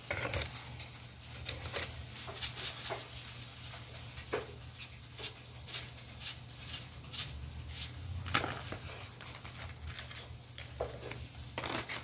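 Soft, irregular clicks and taps of raw pollack fillets being handled and laid into a stainless steel bowl, over a steady low hum.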